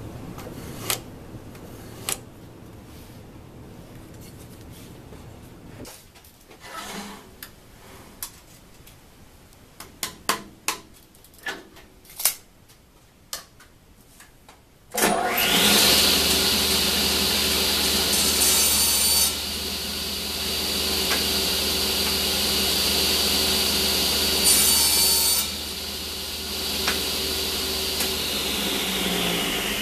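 Scattered light clicks and taps of handling, then about halfway through a cabinet table saw's motor starts with a rising whine, runs steadily for about fifteen seconds, and is switched off, its pitch falling as the blade coasts down near the end.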